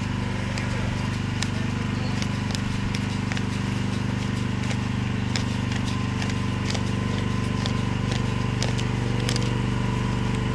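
A machine's engine running at a steady speed, with light clicks here and there.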